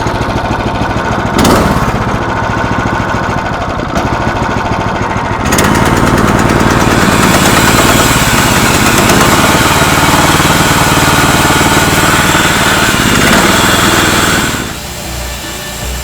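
Small gas engine of a Timber Tuff portable sawmill running just after starting; about five and a half seconds in it grows louder and harsher. Near the end it drops away to quieter background music.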